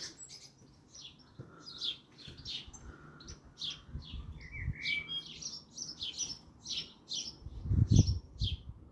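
Small garden birds chirping and singing, many short high calls repeated throughout. Near the end a brief low rumble is the loudest sound.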